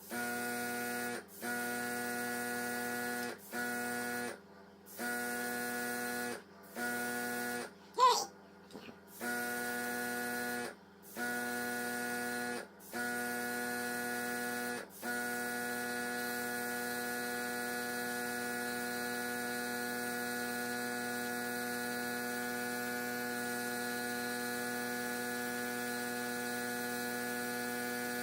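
A steady electrical hum with a pitched whine, broken by short silences several times in the first half, then running unbroken. A brief sharp squeak falling in pitch comes about eight seconds in.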